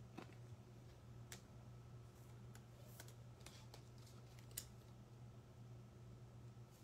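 Near silence: a steady low room hum with a few faint, scattered clicks, the sharpest about four and a half seconds in.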